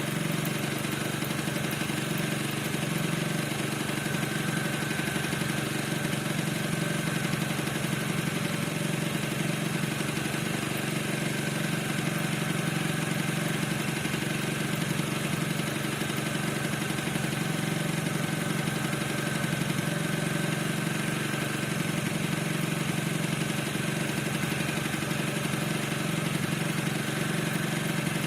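Piaggio NRG 50 scooter's 50 cc two-stroke engine idling steadily, with a squeak whose cause the owner cannot find.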